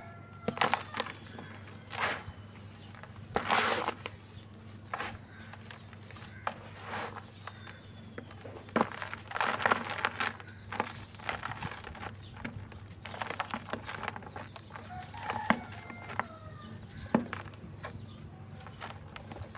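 Dry red dirt clods crumbling in bare hands: irregular crunches, with loose powder trickling down into a plastic tub. Faint bird calls sound in the background.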